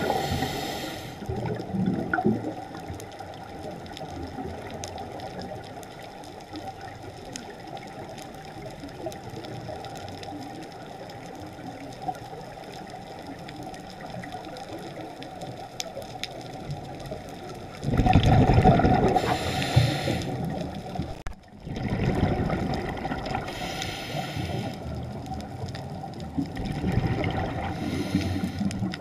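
Underwater recording of a scuba diver breathing through a regulator: rushes of exhaled bubbles a few seconds apart, the loudest about two-thirds of the way through, over a steady underwater hiss with scattered faint clicks.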